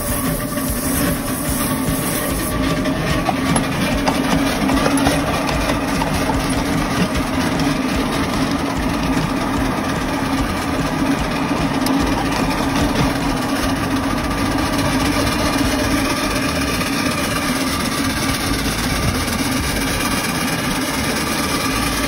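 Steady running noise of a 7 1/4 inch gauge Romulus live steam locomotive moving along the track, heard from close behind on the driving position: the engine working and its wheels running on the rails.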